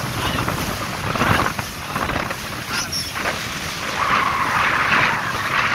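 Wind buffeting the phone's microphone aboard a motorboat under way, over the rush of water against the hull. A louder rushing hiss swells from about four seconds in.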